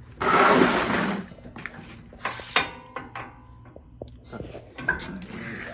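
Hand tools working on a car's rear axle hardware. A harsh scraping burst about a second long comes near the start, followed by scattered sharp metallic clinks and knocks.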